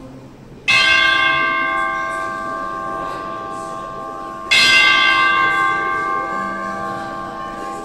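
Large bell tolling: two strikes about four seconds apart, each ringing on and slowly fading.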